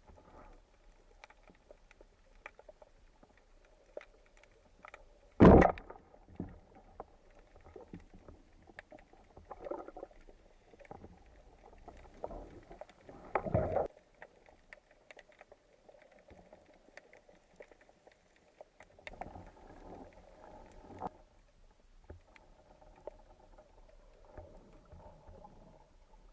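Water sloshing and bubbling around a spearfisher's camera, with many small clicks and two louder swishes, one about five seconds in and a longer one a little past the middle.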